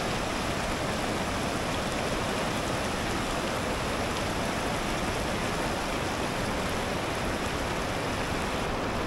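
Fast mountain river fed directly by a waterfall, rushing water making a steady, even roar of noise with no change in level.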